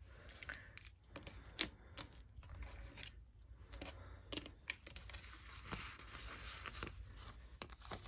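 Faint handling noise of small plastic diamond-painting storage containers and a label sticker: scattered light clicks with scratchy rustling, a longer rustle about five to seven seconds in.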